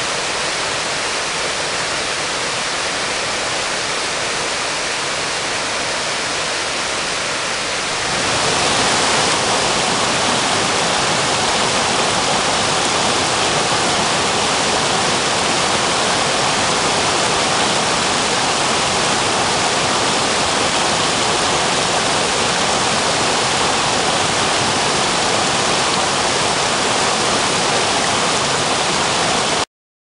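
Mountain stream water rushing down a rock slab, then, from about eight seconds in, a small waterfall cascading over boulders, a little louder and brighter; a steady rush of water that cuts off suddenly near the end.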